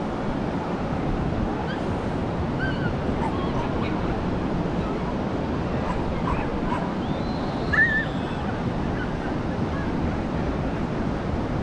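Ocean surf washing steadily onto the beach, with wind. Small short cries are scattered through it, and one brief high yelp stands out about eight seconds in.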